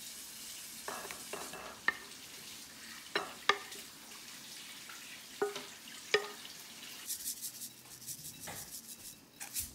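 A wooden spatula scrapes stir-fried okra out of a coated frying pan onto a ceramic plate, with a few sharp knocks and clinks of pan and spatula against the plate. Near the end comes a quick, light rattling as sesame seeds are shaken out of a shaker bottle.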